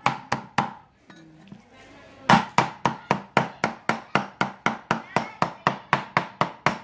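Heavy cleaver chopping raw meat on a thick wooden chopping block, mincing it by hand: rapid, even blows at about four a second. The chopping stops briefly about a second in and picks up again after a second and a half.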